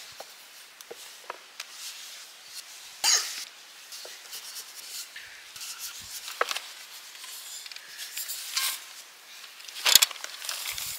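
Scattered soft rustles and small clicks of handling, with a brief louder rustle about three seconds in and a sharp click near the end.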